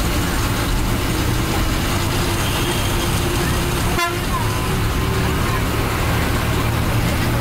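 Inside a moving Ashok Leyland diesel bus: a steady engine drone and road noise, with a vehicle horn sounding in the middle and a single sharp click about four seconds in.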